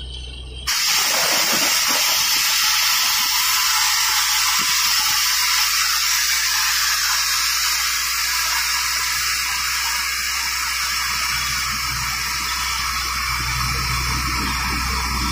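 Borewell being flushed during drilling: compressed air blowing water and cuttings up out of the hole, a loud steady hiss with gushing water that starts abruptly under a second in.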